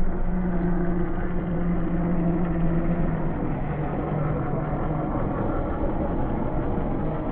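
A 1/10-scale RC crawler's electric motor and gear drivetrain running steadily as it drives, with a low hum that dips slightly in pitch about three seconds in.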